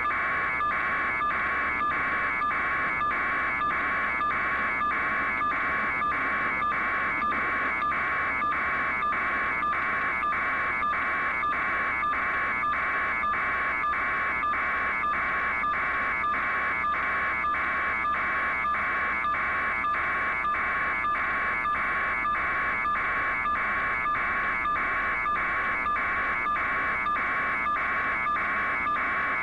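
Helicopter running on the ground with its main rotor turning: a steady high turbine whine that pulses evenly about twice a second.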